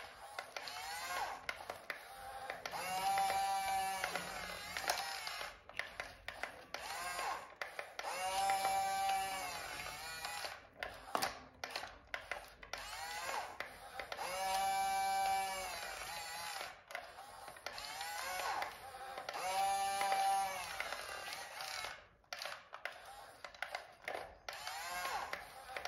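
Small electric motors of radio-controlled construction models whining, the pitch rising and falling as they speed up and slow down about every five or six seconds, with clicking and plastic clatter in between.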